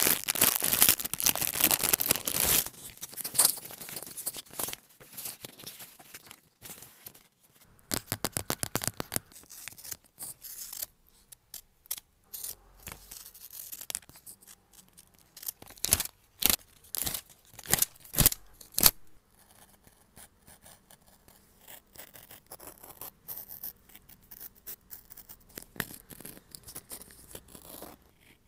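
Paper crafting on a planner page: paper and stickers being cut, handled and rubbed down. Bursts of quick sharp clicks come about 8 seconds in and again around 16 to 18 seconds in, with softer scratching and rustling between.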